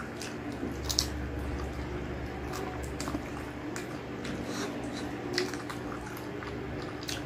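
Close-up wet chewing and mouth smacks while eating gelatinous stewed beef skin from a spicy balbacua, with sticky squishes and lip smacks. The strongest smacks come about a second in and again around five and a half seconds. A steady low hum runs underneath.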